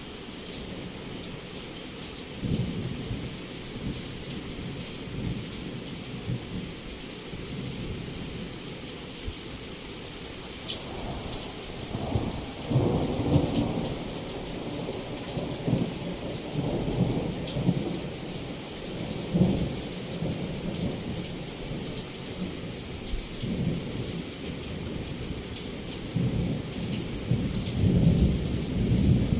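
Heavy rain falling steadily, with thunder rumbling low throughout. The thunder swells loudest about twelve seconds in and again near the end.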